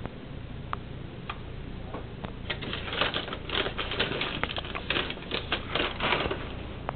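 A newborn's hiccups heard as short soft clicks, a few spaced ones at first, then a dense run of crackling and rustling clicks from about two and a half to six seconds in.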